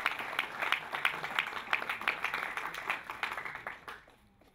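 Small audience applauding, individual claps distinct, dying away about four seconds in.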